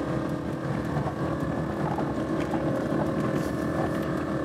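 Steady running noise inside a 1983 VW Jetta on the move: engine and road rumble with a steady whine on top, from the air-horn compressors running to build pressure in the horn tank.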